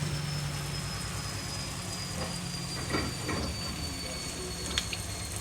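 A steady low mechanical hum, with a few light knocks and clatter about three seconds in and again near the end.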